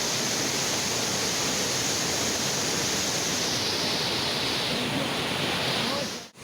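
Steady rush of a waterfall's falling water, cutting out sharply for an instant just before the end.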